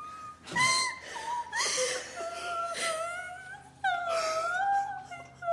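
A teenage girl sobbing and wailing with happy tears in a high, wavering voice, broken half-words between sobs, with a sharper, louder cry about four seconds in.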